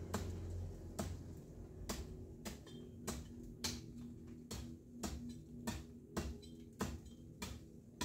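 Hand pruning shears snipping branches in a fruit tree: a run of short sharp clicks, about two a second.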